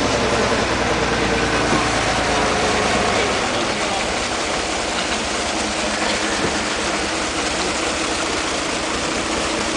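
Truck engine running steadily, powering the loader crane that swings a net basket of carp. About three and a half seconds in, the low engine drone drops back and a steady hiss of splashing water takes over.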